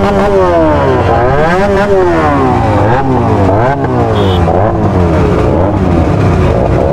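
Motorcycle engines running at speed, their pitch rising and falling again and again as they rev up and ease off. Several engine notes overlap and cross each other. A brief high-pitched beep sounds about four seconds in.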